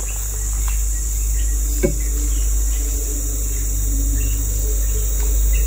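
Chainsaw engine idling with a steady low hum, over a constant high drone of insects. A single sharp knock comes about two seconds in.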